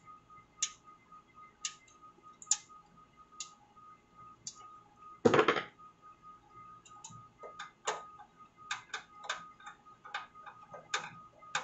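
Screwdriver driving a screw into the steel expansion-slot bracket of a PC case: scattered small metallic clicks and ticks, coming faster in the second half, with one louder, half-second scrape about five seconds in. A faint steady whine runs underneath.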